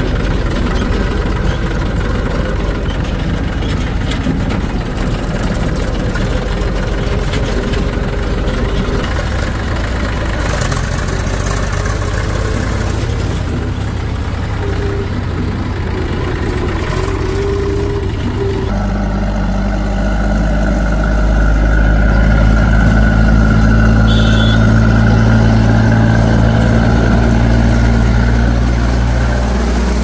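Heavy diesel machinery engine running steadily. About 19 seconds in, its note changes to a deeper, stronger hum, which grows a little louder a couple of seconds later.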